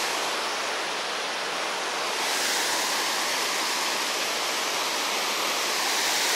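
Small river waterfall: a strong current pouring over it with a steady, even rush of water.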